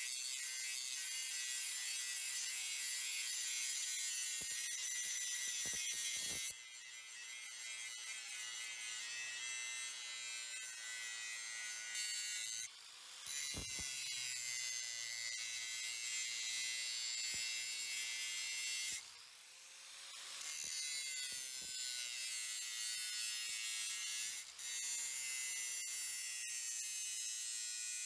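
A small electric power tool running steadily with a high whirring hiss, stopping briefly three or four times and spinning back up after each stop.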